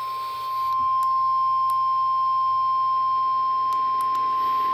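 A single steady alert tone near 1050 Hz, the NOAA Weather Radio warning alarm tone that comes before a warning broadcast, with faint radio hiss underneath. It gets a little louder about half a second in.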